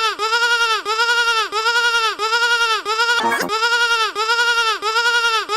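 A bleating-sheep sound effect looped in fast identical repeats, about three short bleats a second, each rising and then falling in pitch. A little past halfway the loop breaks briefly with a quick downward swoop, then the repeats resume.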